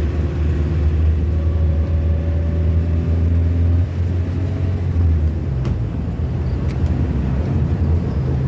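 Vehicle running along a road: a steady low drone of engine and road noise, with a faint engine tone that shifts in pitch.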